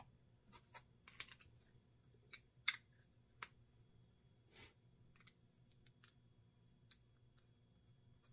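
Quiet, scattered small clicks and taps, the sharpest about two and a half seconds in, from handling the parts of a Penn 430ss spinning reel as its side plate is greased and fitted.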